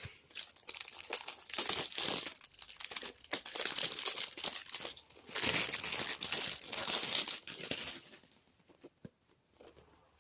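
Packaging around a DVD box set being torn open and crumpled: dense crinkling with tearing that stops about 8 seconds in, followed by a few light clicks.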